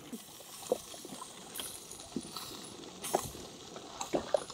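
Fish pieces frying in mustard oil in a steel pot: a faint sizzle with scattered short clicks and knocks, the loudest about three seconds in and near the end.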